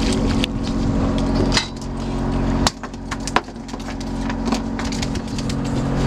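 Boat engine idling with a steady hum that drops away for a second or two in the middle, where two sharp knocks come about two-thirds of a second apart.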